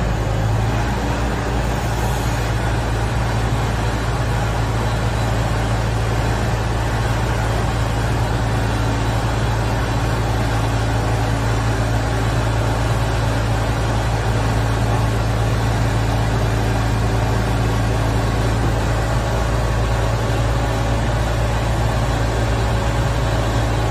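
Propane-fuelled Hoist FR Series forklift's engine running steadily, a loud, even low hum as the forks come down and the truck moves.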